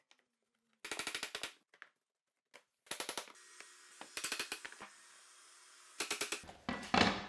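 Rapid runs of sharp taps on a tapping block, knocking laminate floor planks together so that their click-lock joints close tight. They come in four quick bursts, the last and longest near the end.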